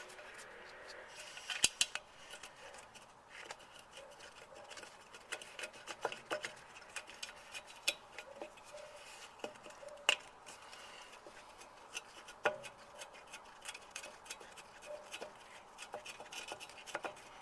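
Light metallic clicks and clinks of a new brake wheel cylinder and its 10 mm bolts being handled and threaded in by hand against a drum-brake backplate, with a few sharper metal knocks.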